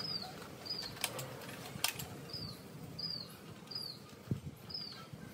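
A small bird chirping over and over, short high falling chirps about every half second. Two sharp plastic clicks come between one and two seconds in, and a dull knock near the end, from a foam-dart blaster being handled.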